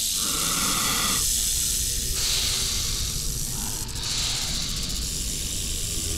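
Cartoon snakes hissing: long, loud, overlapping hisses that swell again about two seconds in and near four seconds.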